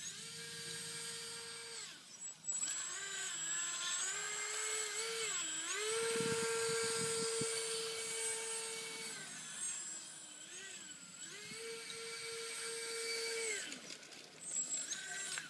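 Electric ducted fan of an RC off-road buggy whining at a high pitch, spooling up and down with the throttle in about four spells, held steadiest for about three seconds in the middle.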